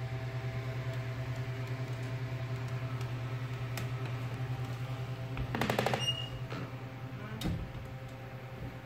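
Steady low electrical hum of a running appliance motor. A brief rapid rattle of clicks comes a little past halfway, and a single knock follows about a second and a half later.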